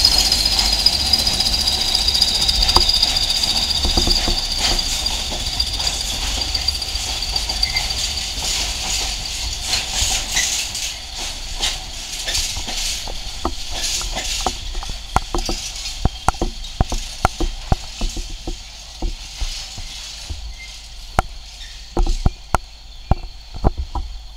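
Freight train of nuclear flask wagons rolling past. A high wheel squeal slowly falls in pitch and fades over the first half. Then wheels click and knock over rail joints in an irregular run, with a few sharper knocks near the end as the last wagon passes, while the overall sound gets steadily quieter.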